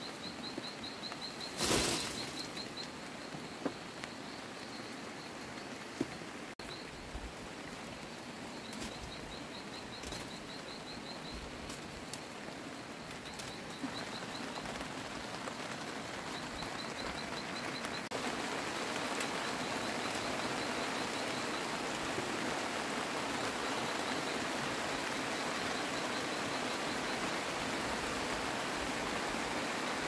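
Outdoor ambience: a steady hiss that grows louder about two-thirds of the way through, with repeated short runs of rapid, high-pitched pulsed chirping. A single loud rustle or knock comes about two seconds in.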